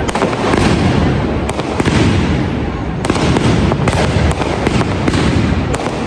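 Correfoc street fireworks going off: a continuous loud rushing noise broken by many sharp cracks and pops.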